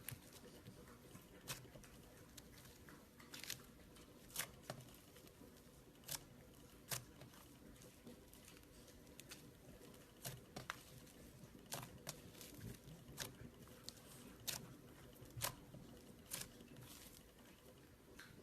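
Butter slime being pressed and poked by hand, giving small sharp pops and clicks every second or so. A faint steady hum runs underneath.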